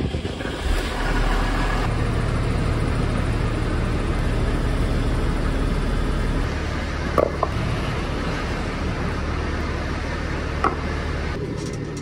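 Tractor's diesel engine running steadily, a low even hum, with a couple of brief clunks about seven and ten and a half seconds in.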